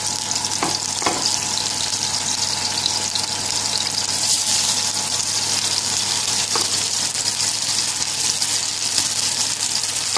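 Beef burger patties sizzling in hot oil in a frying pan: a steady frying hiss that grows louder about four seconds in, with a few light knocks, two about a second in and one more a little after six seconds.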